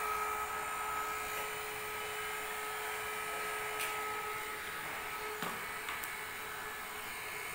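Small 12 V DC fan of a homemade mosquito trap running with a steady whir and hum, made noisy by the mass of mosquitoes caught against it; a few faint handling knocks.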